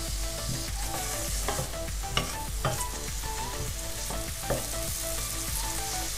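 Chopped onion and garlic sizzling in vegetable oil and butter in a stainless steel pot, gently frying. A wooden spatula stirs and scrapes the pot, with a few sharp knocks against the metal.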